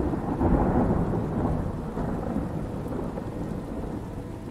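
Thunder rumbling over steady rain: the rumble starts suddenly, is loudest about half a second in, then slowly fades while the rain goes on.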